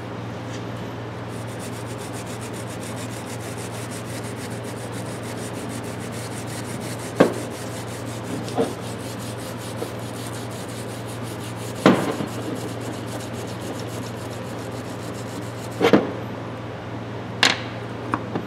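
Small wire brush scrubbing a wooden hammer handle, a steady scratchy rubbing, broken by about five sharp knocks, the loudest about twelve seconds in.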